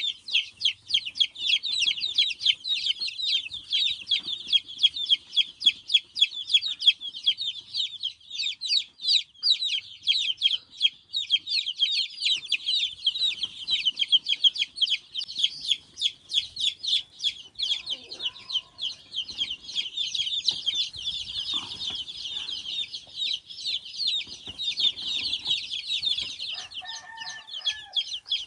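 Many young chicks peeping together without pause: a dense chorus of rapid, high-pitched cheeps overlapping one another, with a few fainter, lower calls in the second half.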